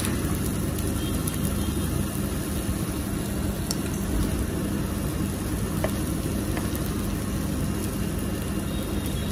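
Steady low mechanical hum under a faint sizzle of broth simmering in a divided stainless-steel hot pot.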